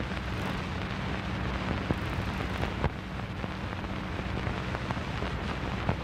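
Steady hiss and crackle over a low electrical hum, with a few sharper clicks: blank playback noise from an old videotape before the programme begins.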